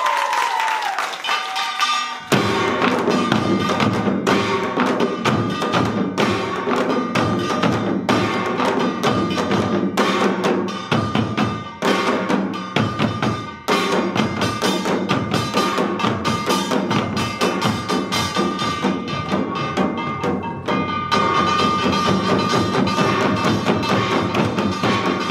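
Korean samul nori percussion ensemble, janggu hourglass drums with kkwaenggwari small gongs, playing a fast dense rhythm together; the full ensemble comes in about two seconds in, with the gongs ringing above the drum strokes.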